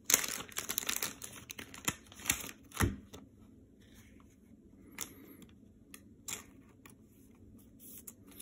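Hands rustling and crinkling the plastic packaging of thick card sleeves for about the first three seconds, with two sharper knocks on the table near the end of that, then only a few small plastic clicks as a card is handled and slipped into a thick sleeve.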